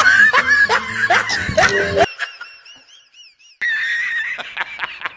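Snickering laughter in quick repeated bursts, which cuts off suddenly about two seconds in. High warbling tones follow, then a fast, regular squeaky chatter of about seven pulses a second over a steady tone, typical of a comic laugh sound effect.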